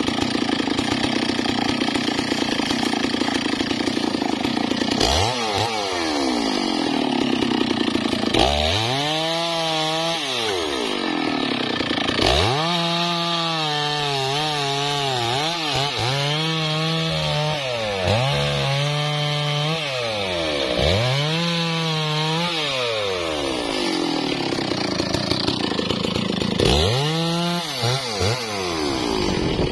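Stihl MS660 two-stroke chainsaw cutting through a teak log. It runs steadily for a few seconds, then its engine pitch repeatedly drops as the chain bites into the wood and climbs back up as it frees, several times over.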